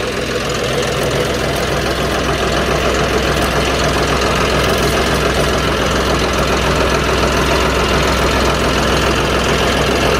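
Four-wheel-drive tractor's diesel engine running steadily while the tractor works the field, its level rising slightly in the first second and then holding even.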